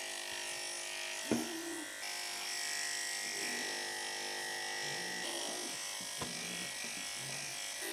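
Electric pet grooming clippers running steadily, shaving matted fur from a cat's hind leg.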